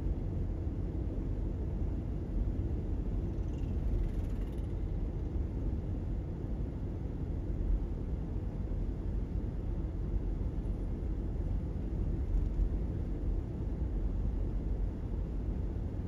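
Steady low rumble of a car cruising at road speed: tyre and engine noise heard from inside the cabin.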